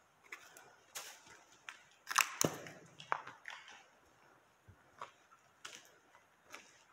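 Footsteps crunching over grit and scattered debris on a concrete floor: a string of irregular crunches and clicks, loudest about two seconds in.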